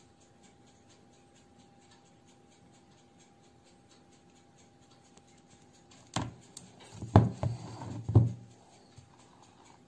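Near silence with a faint steady hum, then, about six seconds in, a short run of five or so sharp knocks and clatters over two seconds as the ladle and the aluminium cake tin are handled on the table.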